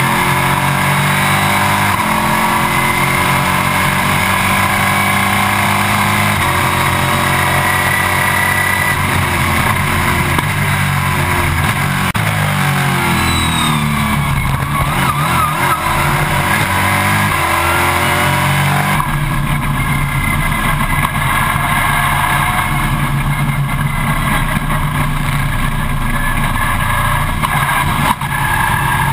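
Stock Car Brasil race car's V8 engine at speed, heard loud from inside the cockpit. The engine note steps and glides as the driver lifts, shifts and gets back on the power, dipping and climbing again around the middle and changing abruptly about two-thirds of the way through.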